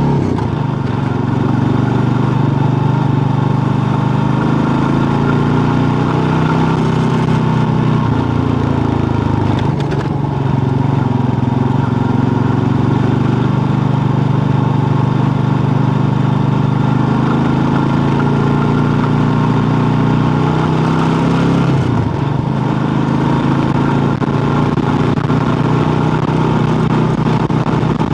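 Kawasaki KLR650's single-cylinder four-stroke engine running steadily while riding on a gravel road. Its note shifts in pitch twice, about ten seconds in and again in the last third.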